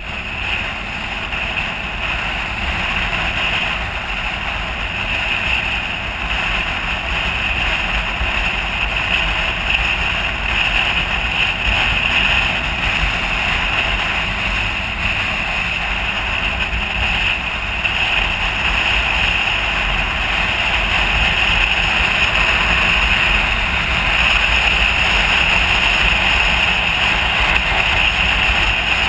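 Onboard sound of a motorcycle riding at road speed: steady wind rush over the microphone with the engine running underneath, gradually getting louder.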